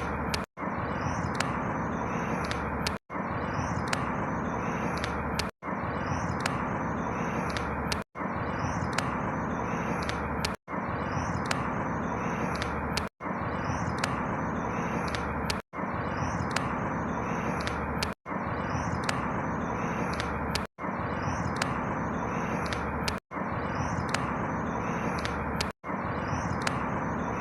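Steady outdoor ambient noise with faint high bird chirps, a short stretch looped about every two and a half seconds, with a brief dropout to silence at each join.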